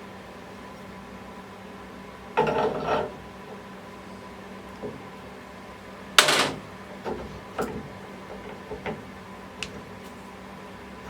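Workshop handling sounds of tools or parts: a short rattling scrape, a loud sharp clack about six seconds in, then several lighter knocks and clicks, over a steady background hum.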